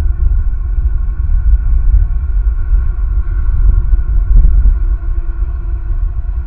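Wind buffeting the outdoor camera microphone: a loud, fluctuating low rumble, with a faint steady hum underneath.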